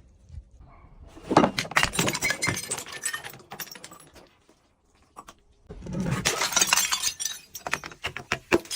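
Glass bottles being crushed, breaking and crunching in two bouts of dense crackling, with a short quiet pause between them.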